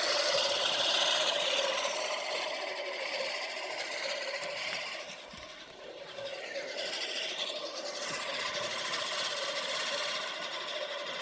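Lawn mower running and cutting grass: a steady hum with a rasping hiss over it, dropping away briefly about halfway through and then coming back.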